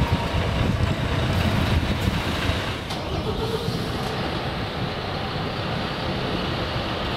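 Articulated city bus running under a concrete canopy, a steady low rumble that eases off slightly about three seconds in and settles into even background traffic noise.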